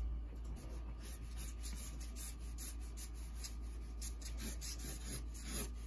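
Sharpie marker rubbing across a large sheet of drawing paper in a run of short sketching strokes.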